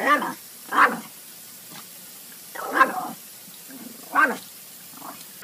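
A dog barking at a spraying garden sprinkler, in single sharp barks a second or two apart, about five in all, over the steady hiss of the water spray.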